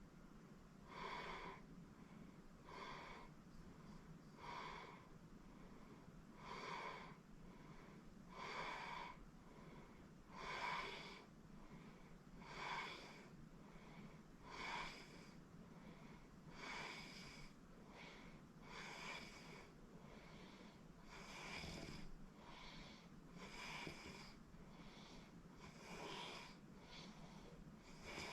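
A sleeping person snoring softly with wheezy breaths, one about every two seconds, faint over a low steady hum.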